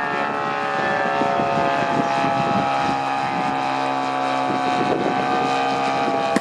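The DLE two-stroke gasoline engine and propeller of a 47% Pilot-RC Decathlon model airplane in flight, running steadily. Its pitch drops slightly in the first second, then holds level.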